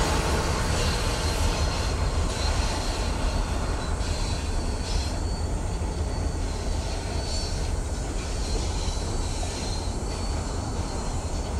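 Freight train rolling past, a steady rumble of wheels on the rails.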